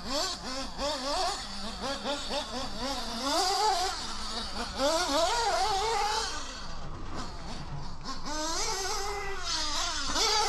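HOBBYTECH B213 three-port nitro engine in an RC buggy running laps. Its pitch rises and falls quickly and over and over as the throttle is opened and closed.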